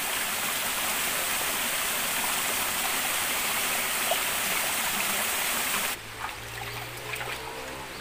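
Shallow stream water running over rocks and stones, a steady rushing. About six seconds in it cuts off abruptly to a quieter background with a faint low hum.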